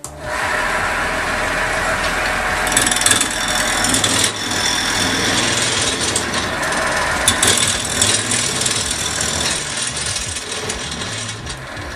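Wood lathe turning a ribbed apricot-wood blank mounted off-axis, with a bowl gouge cutting into it: a loud, rattling racket from the interrupted cut across the ribs. It starts abruptly right at the beginning.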